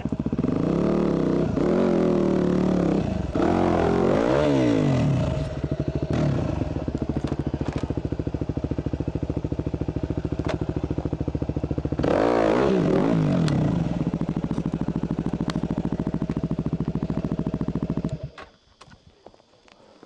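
Yamaha WR250's single-cylinder four-stroke engine idling with several short throttle revs, with a few knocks and scrapes. The engine cuts out about two seconds before the end.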